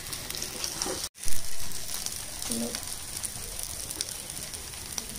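Mashed potato bhorta sizzling in oil in a frying pan, a steady fine crackle. About a second in there is a brief dropout, then a short louder burst.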